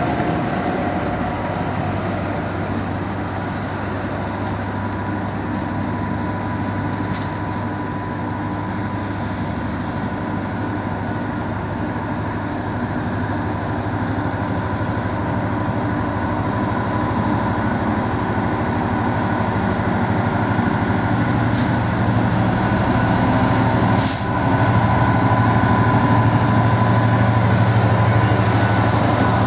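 A train running steadily, with a constant low hum and a faint steady whine over the rumble; two sharp clicks near the end, the second with a brief drop in level.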